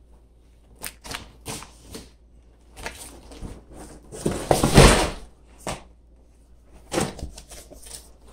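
A large cardboard shipping box being handled and opened: a few short clicks and rustles, then a longer, louder rush of cardboard noise about halfway through as the box is shifted, and more cardboard rustling near the end as the lid is pulled open.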